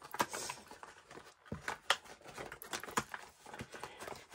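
A cardboard diamond-painting kit box being opened and its paper and plastic contents handled: rustling and crinkling, with scattered light taps and clicks.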